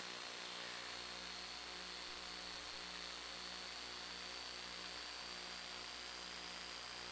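Steady electrical hiss and hum from an FPV video recording's audio channel, with a faint high whine that slowly rises in pitch and a low hum that pulses about twice a second.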